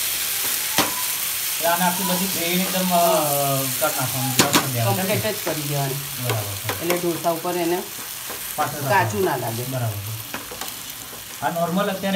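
Chopped vegetables in sauce sizzling in a non-stick frying pan while a metal potato masher presses and stirs them to crush the mix. A wavering pitched sound comes and goes through most of it.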